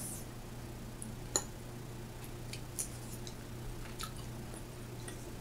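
Quiet eating at a table: a few light clicks of a fork on dishes, the sharpest about a second and a half in, over a steady low hum.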